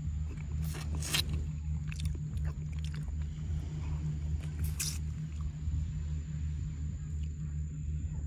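A man eating cooked fish by hand, with a few short mouth and chewing sounds, the clearest about a second in and near five seconds. Under it runs a steady low hum.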